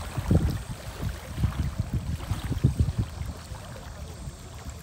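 Wind buffeting the microphone in uneven gusts, a low rumble that rises and falls.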